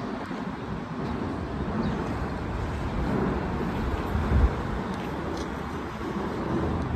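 Road traffic rumble, with one brief louder thump about four and a half seconds in.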